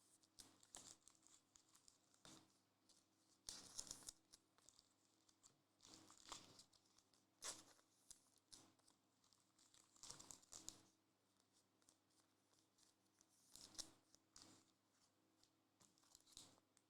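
Faint, irregular crinkling and rustling as trading cards and their plastic packaging are handled.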